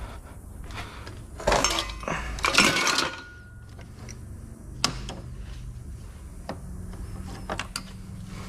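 Loose scrap metal clattering as it is gathered and dropped, with two loud bursts of rattling early on, followed by a few sharp single clinks and knocks.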